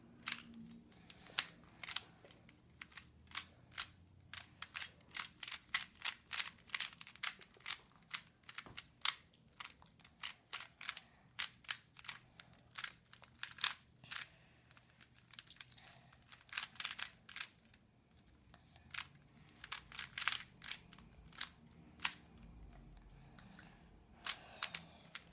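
A Rubik's cube being turned quickly by hand: a run of irregular plastic clicks and rattles as its layers snap round, several a second.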